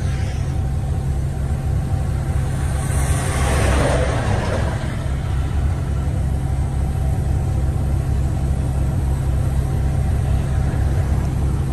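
Heavy truck engine running at a steady speed with road noise, heard from inside the cab while the truck is under tow. A rushing noise swells and fades about three to five seconds in.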